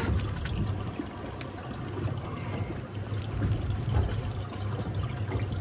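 Water sloshing and lapping against a boat hull, over a low steady hum.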